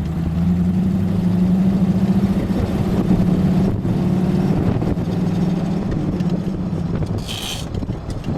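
Jeep CJ engine running at a steady speed while driving, a low, even drone with no revving. A brief high-pitched sound cuts in about seven seconds in.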